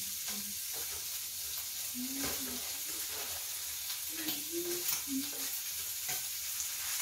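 Food sizzling on a tabletop grill plate, a steady hiss, with a few sharp clicks of tongs against the plate and faint snatches of voices.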